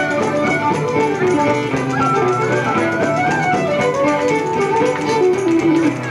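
Irish traditional session music: fiddle playing a tune with guitar accompaniment, the melody moving through several notes a second.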